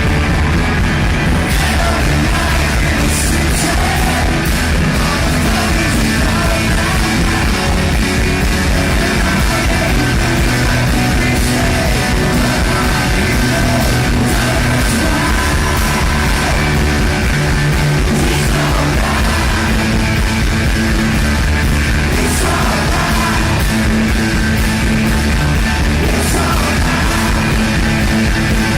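Loud, steady rock music with singing, running without a break.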